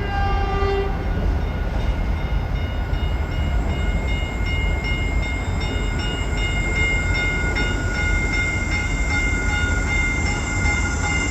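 Caltrain electric passenger train running through the station platform: a steady low rumble with several steady high-pitched tones over it, some pulsing evenly.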